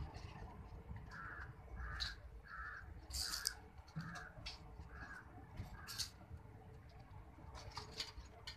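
A crow cawing seven times in steady succession, a little under a second apart, over the low rumble of a passing train, with a few sharp clicks from the wheels.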